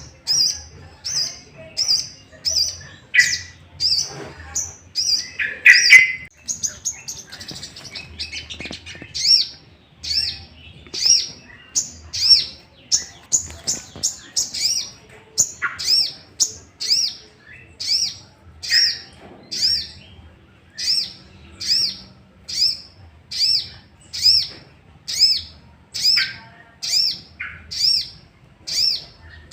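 A sogok ontong (spiderhunter) giving its agitated, fighting call: sharp high notes repeated about two a second, with a few louder, lower notes mixed in near the start. It is a lure call meant to provoke other sogon birds into calling back.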